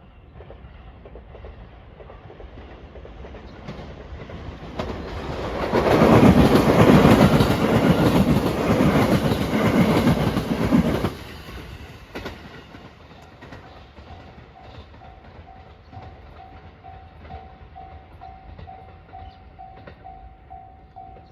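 An electric train passes, growing to a loud rush with wheels clattering over rail joints from about five seconds in, then dying away after about eleven seconds. From about halfway on, the level-crossing alarm dings steadily, about twice a second.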